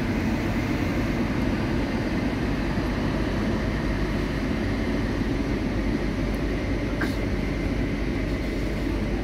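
Loaded open coal wagons of a long freight train rolling past on the rails, a steady noise of wheels on track.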